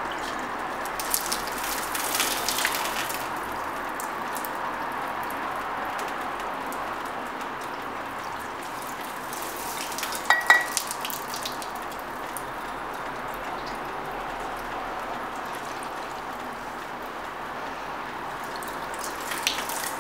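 Water pouring from a watering can onto balcony plants and soil, a steady splashing trickle, with a few small taps early and one sharp clink with a brief ring about halfway.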